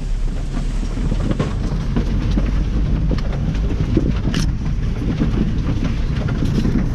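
Pickup truck driving through a tall kale crop, heard from inside the cab: a steady engine and tyre rumble, with kale stalks and leaves constantly brushing and snapping against the bodywork as the crop is flattened, giving many short cracks and knocks.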